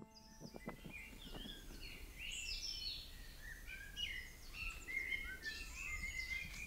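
Songbirds singing and chirping in a busy, overlapping chorus of short high phrases that grows livelier, over a faint low rumble. The last piano notes fade out in the first second.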